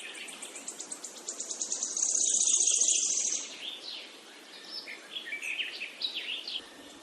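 Wild birds singing: many short chirps and whistles, with a fast, high trill that is loudest from about two to three and a half seconds in, over a steady background hiss.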